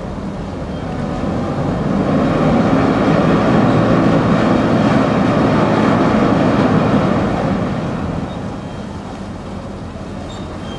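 Diesel engine and propeller wash of a harbour excursion boat coming alongside a pier: a steady churning rumble that swells about two seconds in and eases off again near the end.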